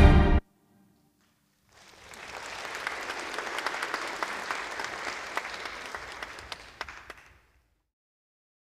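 The dance music cuts off just after the start; after a second and a half of silence an audience applauds for about five seconds, swelling and then fading out.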